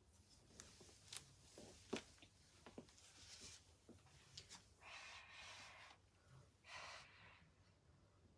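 Near silence in a small room, with a few faint clicks and short soft rustling noises from someone moving about and handling things.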